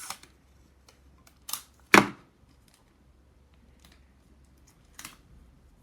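Three short, sharp clicks from handling paper and sticky tape while sealing a homemade paper toy shut; the loudest comes about two seconds in.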